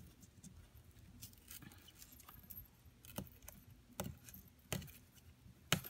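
Fingers picking at and tearing the perforated tear strip of a cardboard album box: faint crackles of card with a few sharper snaps in the second half, the loudest near the end.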